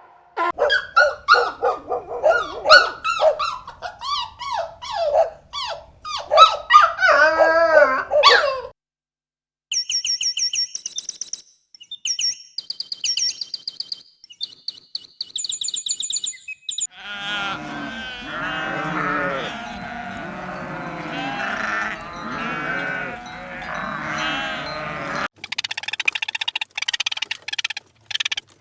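A run of farm animal calls in separate stretches: loud pitched calls that bend up and down, then a short pause and very high chirping, then many overlapping calls from a group of animals, and near the end a series of sharp clicks.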